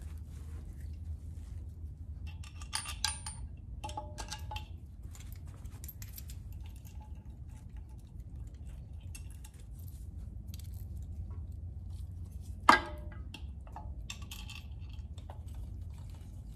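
Metal-on-metal clinks and taps as a billet electric water pump is handled and seated against an aluminium engine plate, in small clusters, with one sharp metallic knock about two-thirds of the way through that is the loudest sound. A steady low hum lies underneath.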